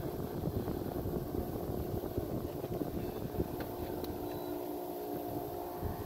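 Electric trolling motor running with a steady hum, under wind rumble on the microphone. The hum stands out more clearly in the second half.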